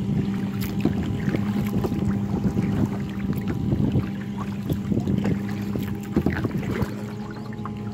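Water splashing and slapping around a kayak, with many small irregular knocks and splashes over a steady low hum.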